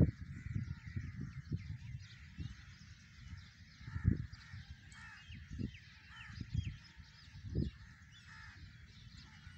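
Birds chirping and calling without a break, with irregular low thumps and rumbles under them, the strongest about four seconds in and again past seven seconds.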